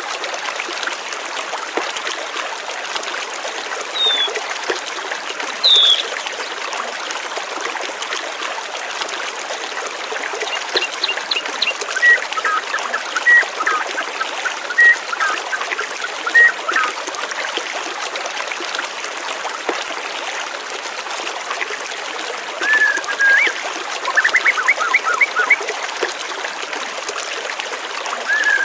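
Steady trickle of flowing water with birds chirping now and then over it: a couple of single calls in the first few seconds, a run of short chirps in the middle, and quick chirp series near the end.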